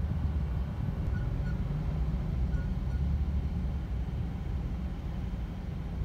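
Car running, heard from inside the cabin: a steady low rumble of engine and road noise.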